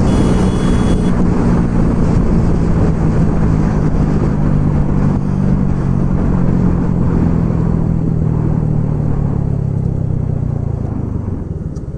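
TVS Radeon commuter motorcycle's single-cylinder engine running steadily at speed, with wind rushing over the microphone. Its sound eases off and fades over the last few seconds as the bike is slowed down.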